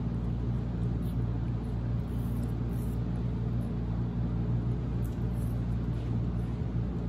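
A steady low hum from a running motor, with a few faint clicks over it.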